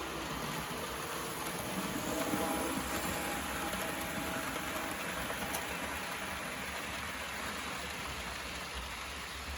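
Märklin model train running along the track: a steady rolling hiss of wheels on rails with a faint motor whine, slightly louder a couple of seconds in.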